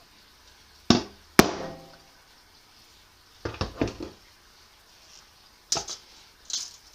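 A series of sharp metallic knocks and clanks: two hard strikes about a second in, the second one ringing briefly, then a quick cluster of knocks and two more near the end.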